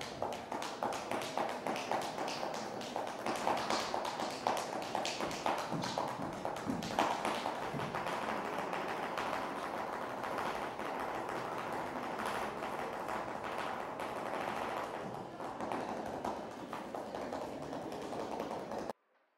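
Flamenco footwork: a dancer's shoes tapping and stamping on the floor in a quick, dense, uneven rhythm. It cuts off suddenly near the end.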